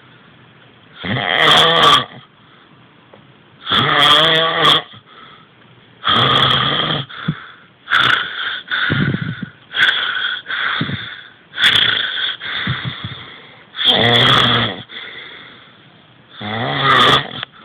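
A man snoring in his sleep: a long string of loud snores, one every second or two, with short quiet gaps between them.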